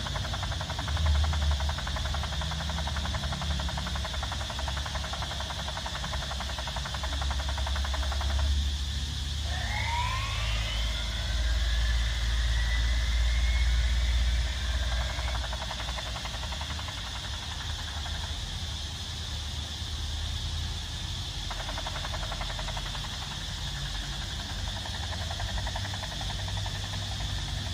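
Tonka Toughest Minis S.W.A.T. helicopter toy playing its electronic sound effect through its small speaker: a steady, hissy whirr of helicopter noise, with rising siren-like sweeps about a third of the way in.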